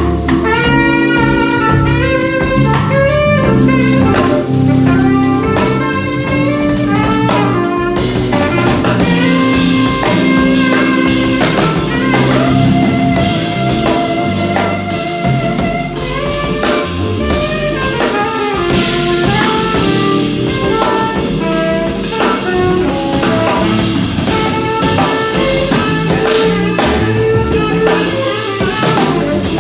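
A live band plays a song with drum kit and bass under a melodic lead line.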